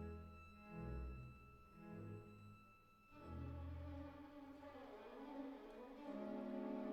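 Background music: slow, sustained bowed-string chords with swelling low notes, moving to a new held chord near the end.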